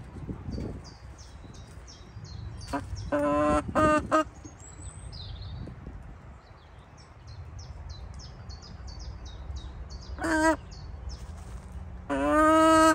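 Poultry calling in loud short notes: a quick run of calls about three seconds in, a single call near ten seconds and a longer call near the end. Small birds chirp in the background throughout.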